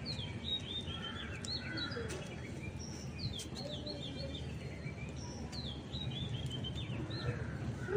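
A songbird singing in repeated phrases of quick, falling high chirps, heard three times over a low steady background.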